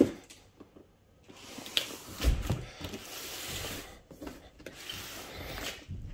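Large shrink-wrapped cardboard box being turned over and shifted on a wooden table: cardboard scraping and rubbing against the tabletop, with a knock at the start and a low thump about two seconds in.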